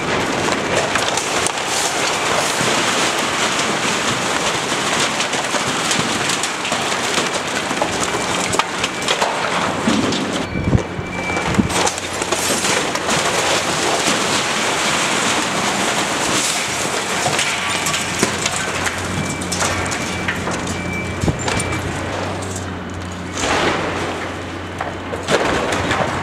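Building demolition: brick and masonry debris crashing and clattering down in a continuous rumbling rush, with sharper cracks here and there. A heavy machine's engine hums steadily underneath.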